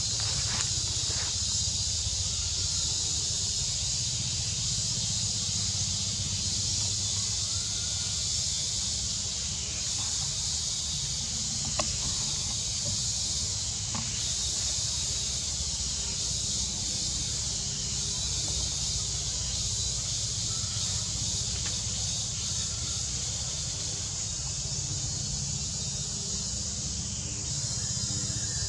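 Steady high-pitched insect chorus over a low rumble, with one faint click about twelve seconds in.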